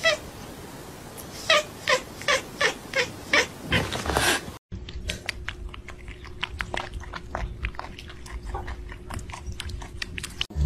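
A cat calling in a quick run of short yowls, about three a second. After a cut about four and a half seconds in, a cat crunching dry kibble from a bowl: rapid crisp crunches.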